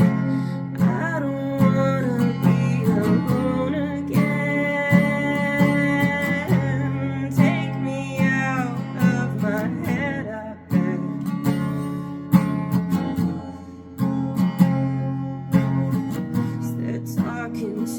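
Acoustic guitar strumming chords, with a singing voice that comes and goes.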